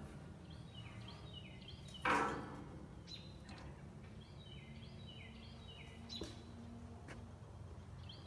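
A songbird singing short phrases of quick downward-slurred whistled notes, repeated several times. About two seconds in there is a brief loud clatter, the loudest sound, and a couple of faint clicks come later.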